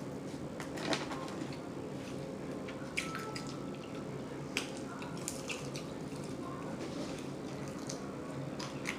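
Wet mouth smacking and chewing while eating lemon pepper chicken wings: about a dozen short, irregular smacks and clicks.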